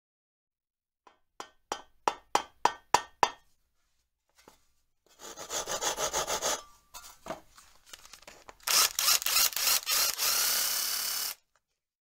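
Workshop tool sounds: a run of about eight sharp knocks, roughly three a second, then two spells of rasping strokes, the second louder and longer.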